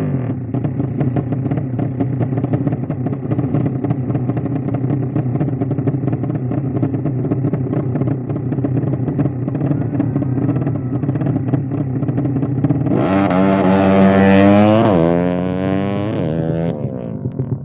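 A 200cc built single-cylinder four-stroke motorcycle engine idling steadily, then revved up twice about thirteen seconds in and dropping back to idle near the end.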